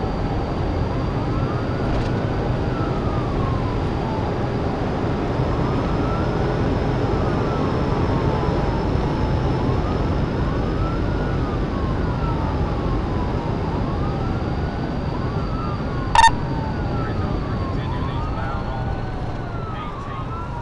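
Police car siren wailing, rising and falling about every four seconds, heard from inside the patrol car over the steady rumble of road and wind noise at well over 100 mph. A single sharp click comes about sixteen seconds in.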